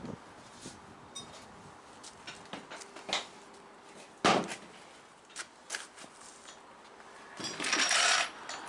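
Heavy wooden blocks being lifted and set down on the van's wooden floor: a few sharp knocks and clicks, the loudest about four seconds in, and a longer noisy rush about three-quarters through.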